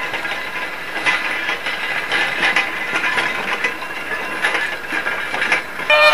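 Horse-drawn wooden road grader rattling and scraping along a gravel road: a dense, irregular clatter of small clicks.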